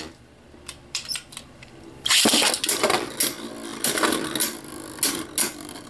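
Two Beyblade Burst spinning tops, Valkyrie Wing Accel and Kerbeus, whirring in a clear plastic stadium bowl. The first two seconds are quieter, with a few light clicks. From about two seconds in comes a steady rattle with repeated sharp plastic clacks as the tops strike each other and the stadium.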